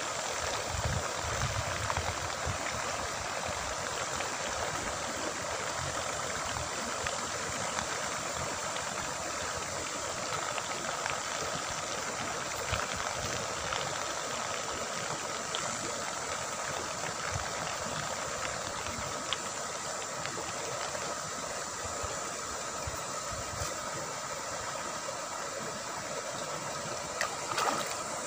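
Steady splashing and slurping of a crowd of carp and tilapia feeding at a pond's surface, with a louder splash near the end.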